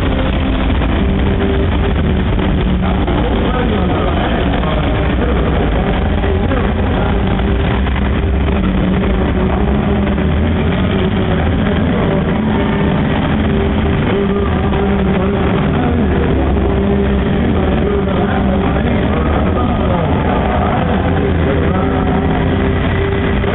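Several farm tractor engines running steadily, mixed with voices and music.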